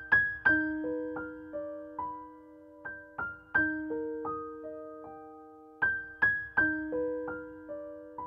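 Background music: a gentle keyboard melody of single struck notes that ring and fade.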